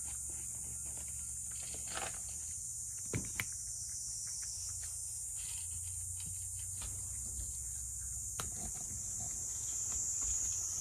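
A cat eating dry kibble from a dish, with a handful of sharp crunches and clicks scattered through. A steady high hiss and a low hum run underneath.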